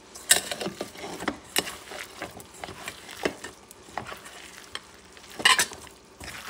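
A bare hand squeezing and kneading raw ground meat mixed with egg and chopped vegetables in a stainless steel bowl: irregular wet squelches and crackles, with a louder burst of squelching about five and a half seconds in.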